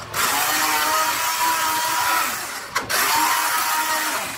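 Electric hand blender running in a pan of cooked fenugreek leaves, dal and coconut milk, a steady whirring with a high whine as it purées the greens. It cuts out briefly near three seconds in and starts again.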